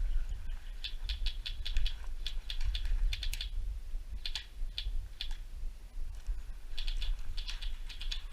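Airsoft guns firing in several quick strings of sharp, clicky shots, with short pauses between the strings.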